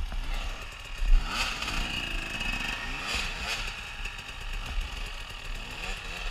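Enduro dirt bike engines running, with revs rising and falling as a bike climbs the trail.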